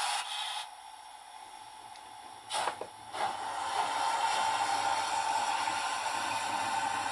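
Märklin BR 85 model steam locomotive with a 5-pole armature motor running on the track: a steady motor whine with wheel and rail running noise. It dips quieter early on, a brief clatter comes about two and a half seconds in, then the running noise holds steady.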